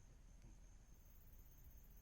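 Near silence: a faint low rumble and a thin steady high tone, with one faint click about half a second in.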